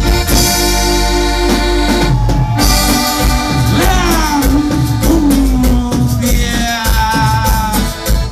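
Tejano band playing live: accordion leading over electric bass, acoustic guitar and drums.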